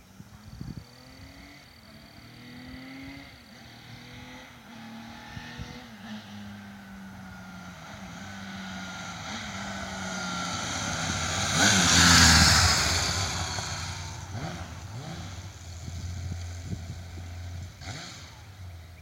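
Honda CBX inline-six engine on its stock exhaust, freshly tuned, as the bike is ridden past: the engine note grows louder as it approaches, is loudest about twelve seconds in with the pitch dropping as it goes by, then settles into a steadier, lower running note.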